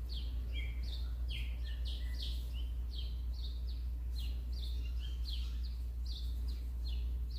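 A small bird chirping over and over, short high chirps that each drop in pitch, about two or three a second, over a steady low hum.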